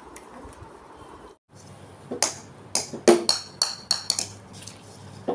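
Quick run of sharp, ringing plastic clacks from a toy plastic cricket bat and hollow ball on a tiled floor, starting about two seconds in.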